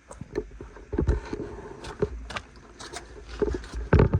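Irregular thumps and short knocks of someone moving about and handling things, likely footsteps and knocks against fixtures, with the heaviest thumps about a second in and near the end.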